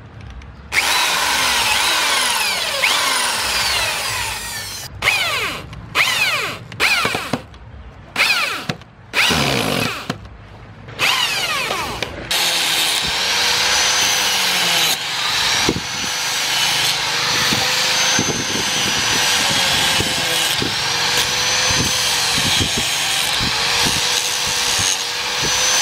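Corded electric drill boring pin holes through a wooden knife handle in a series of short runs, stopping and starting, its motor pitch sliding as it speeds up and slows. About halfway through, a Makita angle grinder with a sanding disc takes over and runs steadily, grinding down the wooden handle, its pitch wavering slightly under load.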